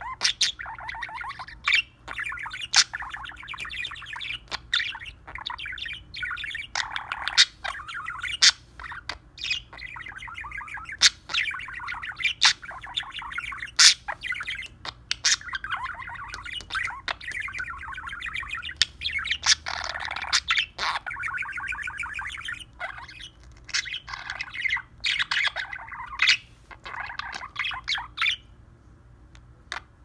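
Budgerigar warbling: a long, nearly unbroken run of fast chattering song with many sharp clicks mixed in, breaking off near the end.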